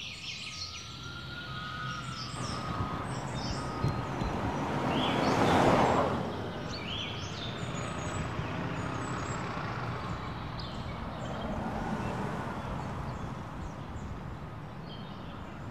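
Town street ambience: a steady low hum of traffic, with one vehicle passing and swelling loudest about six seconds in. Birds chirp over it throughout.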